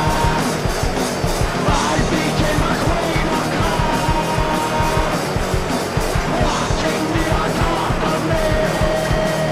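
Noise rock recording: heavy, distorted electric guitars over fast, dense drumming, with held guitar notes ringing above.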